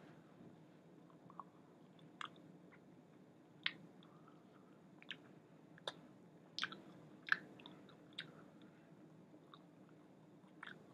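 A person chewing and biting into a hot chicken wing: faint irregular clicks and crackles from the mouth, a cluster of sharper ones around the middle, over a steady low hum.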